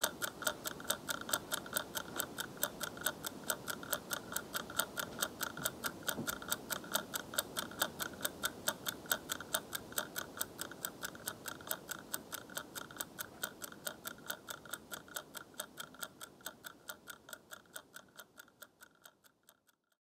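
Pear-shaped mechanical twist kitchen timer ticking in a fast, even rhythm, just wound and counting down; the ticking fades out near the end.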